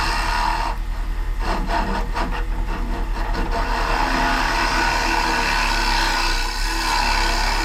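Wood lathe running with a carbide turning tool scraping into a spinning maple bowl blank: a steady hissing scrape over the motor's hum. About a second in, for two or three seconds, the cut comes and goes in quick pulses before steadying again.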